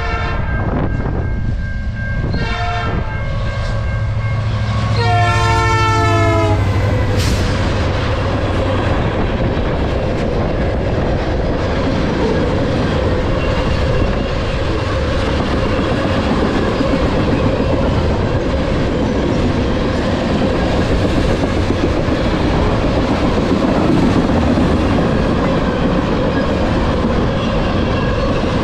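Freight train's diesel locomotive sounding its multi-note horn. The end of one blast comes first, then a short blast and a longer one that stops as the locomotive passes, about seven seconds in. After that come the steady rumble and wheel clatter of a long string of tank cars rolling past.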